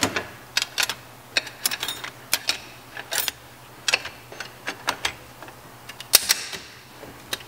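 Transmission clutch plates clicking and clinking against each other and the drum as they are stacked by hand into a 700R4 forward clutch drum: a string of irregular light metallic clicks, one louder about six seconds in.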